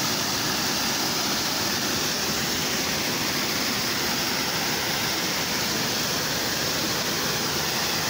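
Waterfall pouring over rock ledges close by: a steady, unbroken rush of falling water.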